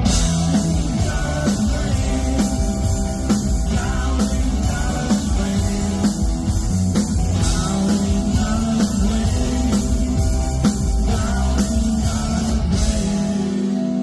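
A rock band playing live: two electric guitars, bass guitar and a drum kit in a steady beat.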